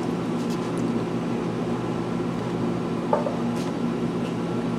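Steady mechanical hum with a few fixed low tones under an even hiss, with one short click about three seconds in.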